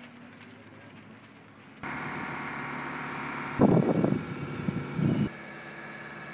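An engine running with a steady hum that cuts in abruptly about two seconds in, with loud irregular low rumbles over it for a second or two in the middle.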